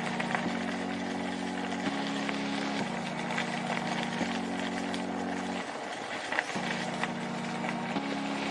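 Background music: sustained low chords that change about every second and a half, over a steady hiss.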